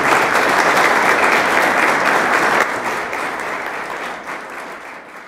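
Audience applauding, dense clapping that drops in level after about two and a half seconds and then dies away.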